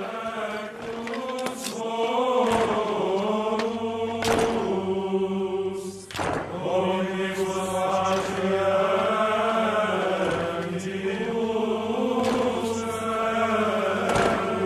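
Male voices chanting a slow Latin plainchant together over a low held note, the melody rising and falling in long phrases. A couple of sharp knocks cut through about four and six seconds in.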